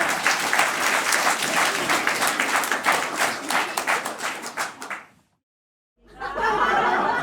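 Audience applauding with dense clapping and shouts, fading out about five seconds in. After a second of silence, a crowd's chatter starts up near the end.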